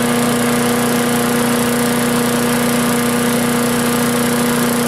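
Troy-Bilt wood chipper's 250 cc Briggs & Stratton single-cylinder engine running steadily at an even speed, on its newly installed carburetor.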